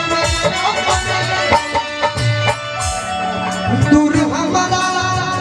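Live Indian folk-style band music: hand-drum beats in a steady rhythm under long held melody notes.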